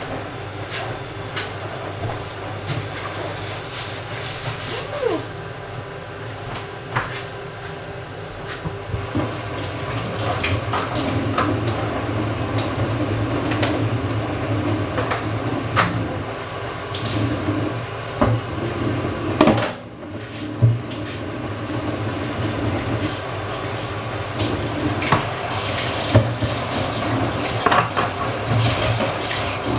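Kitchen tap running into a sink, growing louder about nine seconds in, with occasional knocks and clinks.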